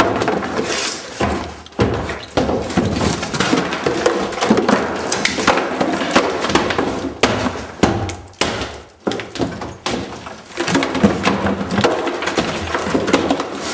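Demolition of wooden building material: repeated cracking, splintering and knocking impacts as it is torn and broken out.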